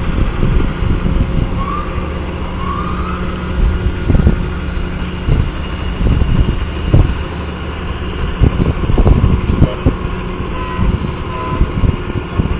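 Heavy parade vehicles' engines running steadily as they pass, with irregular low thumps over the hum and two short rising chirps about two seconds in.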